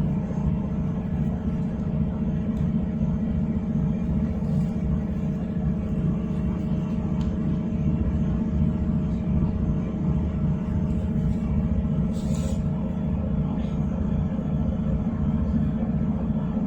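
Train running, heard from inside the carriage: a steady, continuous low rumble with a steady hum above it, and a few faint brief noises now and then, the clearest about twelve seconds in.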